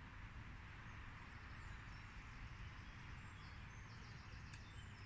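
Faint outdoor ambience: a steady hiss and low rumble with a few faint bird chirps, and one short click near the end.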